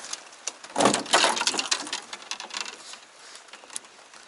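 Fishing rods and spinning reels clattering against each other and the boat's plastic deck as one rod is pulled out of a pile: a burst of clicks and knocks, loudest about a second in, trailing off into lighter rattles.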